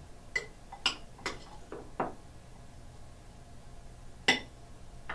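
Metal spoon clinking against a glass bowl while stirring a chunky salsa. There are several short ringing clinks in the first two seconds, then a louder single clink about four seconds in.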